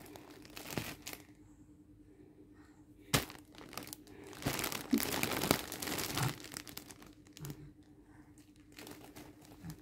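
Plastic wrapping of freshly laundered clothes crinkling and rustling in irregular bursts as a toddler handles it, the longest stretch about halfway through. A single sharp click a little after three seconds.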